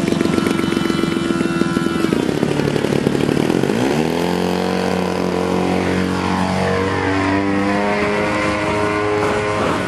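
BME 110 twin-cylinder two-stroke gasoline engine and propeller of a giant-scale Yak 55SP radio-control aerobatic plane, running at low throttle. About two seconds in it is opened up, rising to full power over the next two seconds for takeoff. It then holds a steady high-revving drone whose pitch slides slightly as the plane climbs away.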